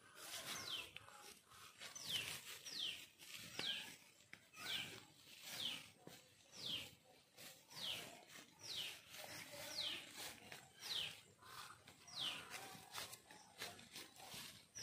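A bird calling over and over outdoors: a short high note sliding downward, repeated about once a second.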